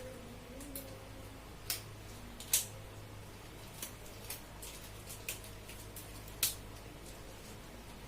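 Scattered light clicks and taps of small objects being handled, three of them louder than the rest, over a steady low hum.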